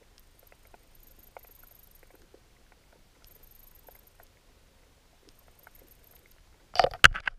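Underwater ambience picked up by a camera in its waterproof housing: sparse faint clicks and ticks, then a run of loud, sharp crackling knocks near the end.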